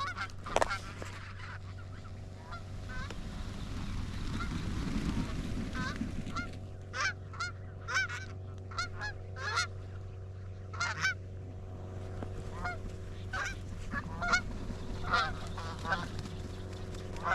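Canada geese honking: a string of short, separate honks, sparse at first and coming thick and fast from about six seconds in, over a steady low hum.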